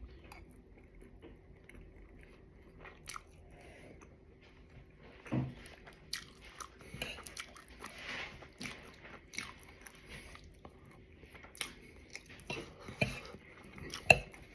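Someone biting into and chewing chicken pot pie with a baked pastry crust: soft crunches and mouth clicks come in scattered clusters, the loudest about five seconds in.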